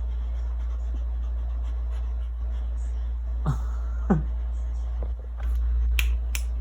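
Northern-breed dog whining twice, each whine a short cry falling steeply in pitch, about half a second apart, over a steady low hum; a few sharp clicks follow near the end.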